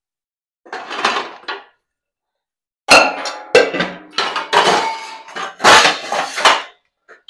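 Stainless steel pots, lids and vessels clanking against each other as they are handled in a wire dish rack: a few softer knocks about a second in, then from about three seconds in a run of sharp metallic clanks.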